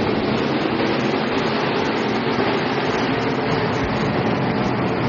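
A pack of IMCA stock cars at racing speed, many V8 engines running together as one steady, dense drone.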